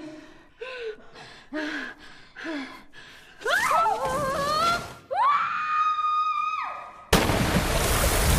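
A young woman gasps and grunts in short breaths, then screams twice, long and rising, as she drops through a narrow rock crack. About seven seconds in, a sudden loud splash as her body hits the water below.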